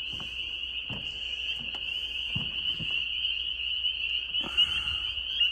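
Spring frog chorus: many frogs calling at once in one steady high-pitched trill that never lets up. A second, lower call joins briefly about four seconds in.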